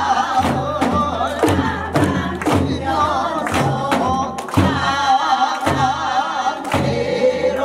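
A group of women singing a Korean folk song together with a wide vibrato, backed by sharp drum strokes about once or twice a second from small handheld sogo drums and a barrel drum.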